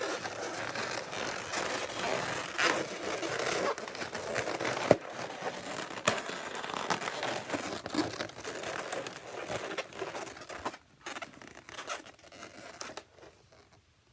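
Inflated latex twisting balloons rubbing, squeezing and twisting against each other under the hands, a dense rustling with a few sharp clicks. It dies down near the end.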